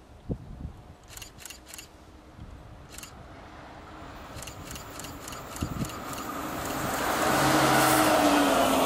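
TGV high-speed electric trainset running through a station without stopping: a rumble of wheels on rail that builds over several seconds into a loud steady rush as the train goes by, with a faint steady hum under it.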